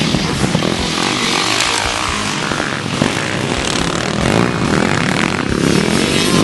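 Motocross dirt bike engines revving and running as bikes race on the track, rising and falling in pitch a little past the middle as a rider accelerates.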